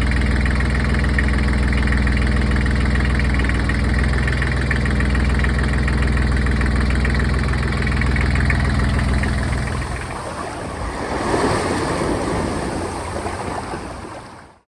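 Universal M-25XP marine diesel engine idling steadily. About ten seconds in, its even note drops away into a rougher, noisier sound, which cuts off suddenly near the end.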